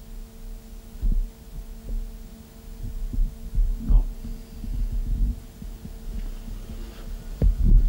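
Steady electrical hum with irregular low thumps and rumble underneath, the loudest thumps near the end.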